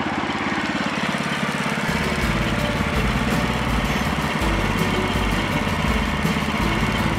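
The small engine of a Woodland Mills HM130 portable bandsaw mill running steadily while the band blade saws through a beech log. About two seconds in, the sound gets deeper and heavier.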